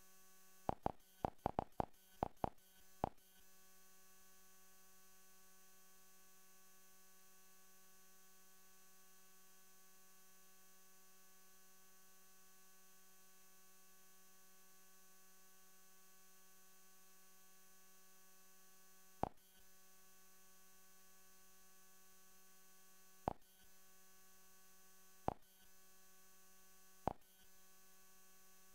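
Steady, faint electrical hum with a buzzing tone, broken by sharp clicks: a quick run of about seven in the first three seconds, then four single clicks spaced a few seconds apart in the last third, as the menus are clicked through.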